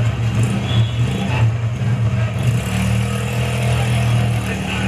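Motorcycle engine running steadily, with street noise.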